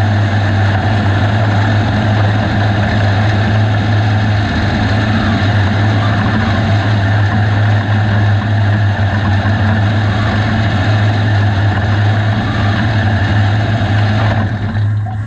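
USRA B-Mod dirt-track race car's V8 engine running steadily at a low, idle-like speed, heard from inside the cockpit. Near the end the higher-pitched part of the sound falls away while the low engine note carries on.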